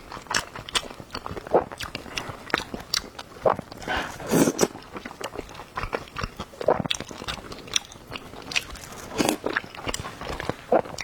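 A person eating close to the microphone: biting and chewing food, with many short crunchy clicks and a few longer mouth sounds.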